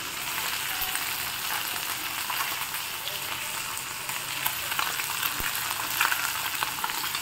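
Small turmeric-marinated fish frying in hot oil in a pan, a steady sizzle with light crackles and pops.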